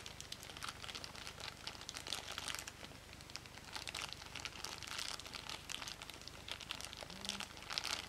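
Thin clear plastic bag crinkling in the hands as a small toy car is unwrapped from it: a dense run of quick crackles that stops abruptly at the end.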